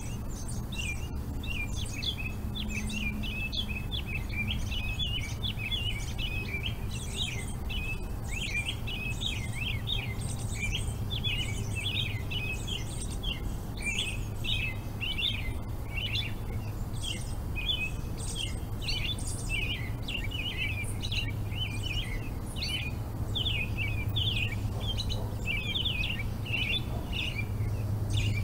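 Many birds chirping and twittering at once in a dense, unbroken evening chorus, over a steady low hum.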